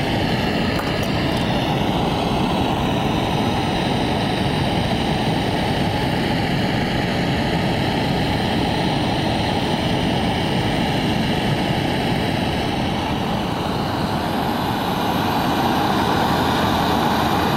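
Hose-fed gas torch burning with a steady rushing hiss while its flame heats a steel leaf spring for bending. It grows slightly louder near the end.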